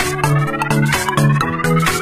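Electronic background music with a steady beat and bass line, and a synth sweep rising slowly in pitch.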